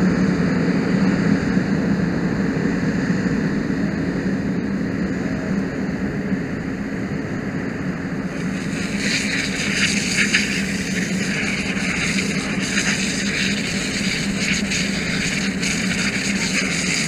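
Steady engine drone, typical of a fire apparatus pump running to supply the hose line. From about halfway through, a crackling rustle of dry leaves and brush joins it.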